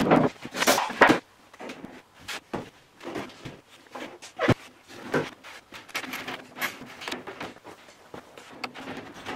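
Wooden knocks and scrapes as a light wooden boat frame and its plywood forms are handled and shifted, loudest in the first second, with one sharp knock about halfway through.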